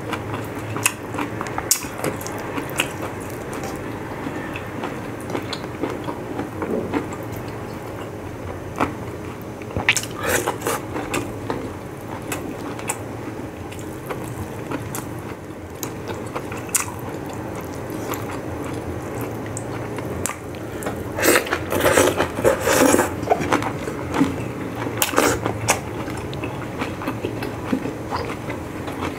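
Eating sounds: chewing and wet mouth noises from a person eating boiled pork and broth-soaked cabbage with his hands, with scattered small clicks and drips and a busier, louder stretch about two-thirds of the way through.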